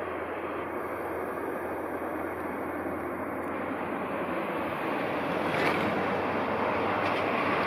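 JR Freight EH200 electric locomotive with a train of tank wagons moving during shunting: a steady running noise with a low hum that grows gradually louder as it approaches.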